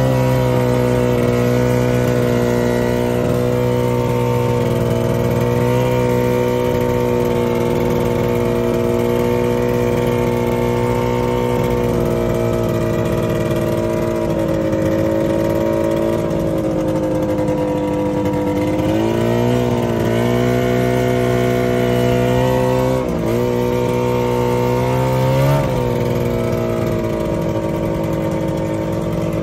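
Ski-Doo snowmobile engine running steadily at trail speed. In the second half the engine speed dips and picks up again a few times, with a brief rise near the end.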